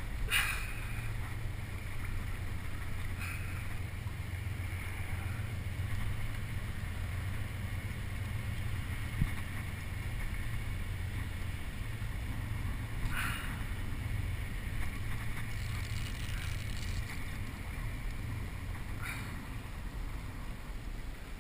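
Water rushing and lapping along a kayak's hull as it moves, under a steady low rumble of wind on the microphone, with a few short splashes against the hull.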